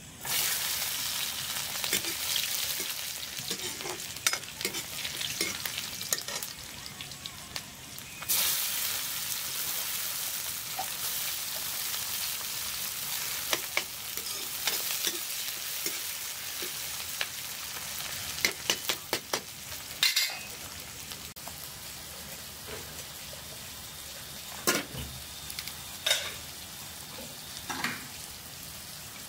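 Chopped onions and vegetables dropped into hot oil in an iron wok, sizzling loudly at once, with the sizzle surging again about eight seconds in. A spoon scrapes and clacks against the pan as they are stirred, and the sizzle dies down to a softer frying with a few knocks toward the end.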